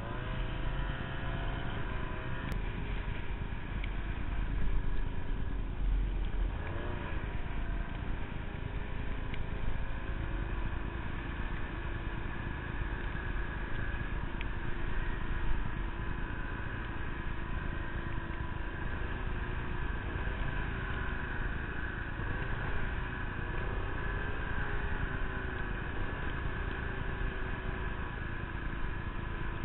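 Ski-Doo snowmobile engine running under throttle through deep powder snow. Its pitch rises and falls over the first several seconds, then holds steadier, under a constant rush of noise.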